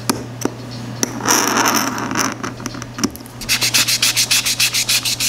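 Sanding sponge rubbed quickly back and forth over a plastic model-kit part, about seven strokes a second, starting about three and a half seconds in. Before that, a scribing tool scrapes and clicks on the plastic. A steady low hum runs underneath.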